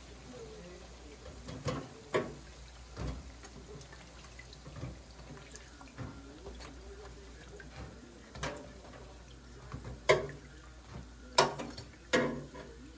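Metal tongs clinking against a stainless deep fryer's wire draining rack several times, the sharpest knocks near the end, over a soft sizzle of doughnuts frying in the oil.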